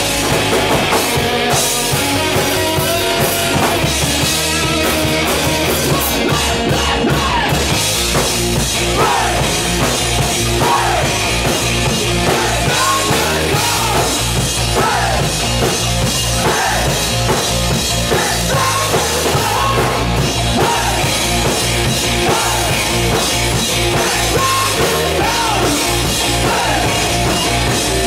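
Live hard rock band playing loud: two electric guitars, bass guitar and drum kit, with a male lead voice singing into the microphone from about nine seconds in.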